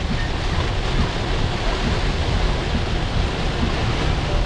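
Heavy rain falling on a car's roof and windshield, heard from inside the cabin as a steady, dense hiss.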